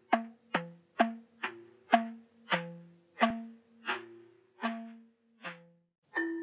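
A wooden slit drum (African conga log) struck about ten times, each stroke a hollow knock ringing on one of several low pitches, the strokes slowing gradually. Near the end a denser run of brighter chiming notes comes in.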